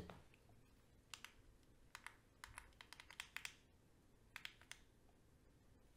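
Faint, irregular typing clicks in short clusters, as a search is typed out.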